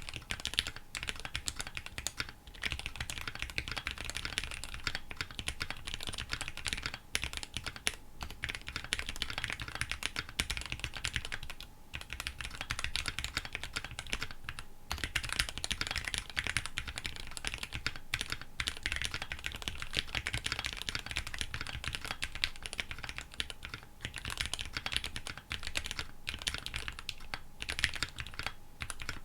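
Continuous fast typing on a KBDfans D65 65% mechanical keyboard with Gateron Black Ink v2 linear switches and EPBT PBT keycaps: a dense run of keystrokes, with brief pauses about twelve and fifteen seconds in.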